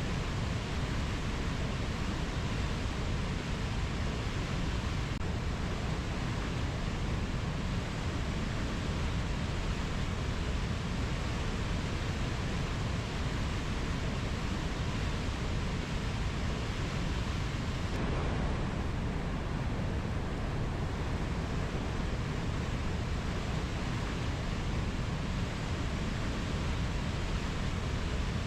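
Steady, even rushing noise of a rainforest nature-sound track, with no bird calls or other distinct events; its character shifts slightly about two-thirds of the way through.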